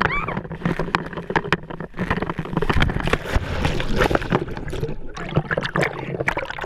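Water splashing and sloshing, with many sharp splashes one after another and a louder rush of splashing about three to four seconds in.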